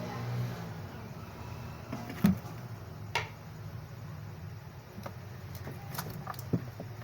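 A few light clicks and knocks of handling and tool contact during phone repair work, the sharpest a little over two seconds in, over a low steady hum.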